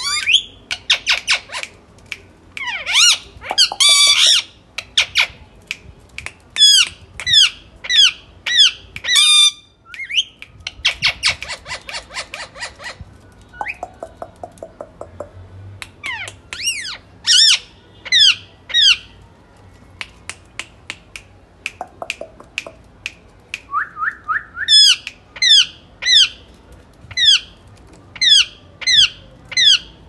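Rose-ringed parakeets calling: runs of short, shrill, sweeping squawks a few a second, with a fast rattling chatter of clicks a little before the middle and a couple of quieter pauses.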